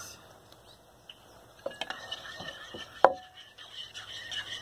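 Spoon clinking and scraping in a bowl as a still-runny slime mixture is stirred, starting about a second and a half in, with one sharp clink about three seconds in.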